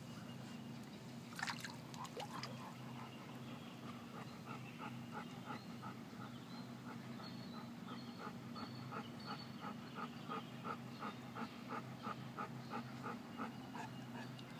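Golden retriever wading in shallow water, with a brief splashing about a second and a half in. A long, even run of short pulses follows, about three a second, over a low steady hum.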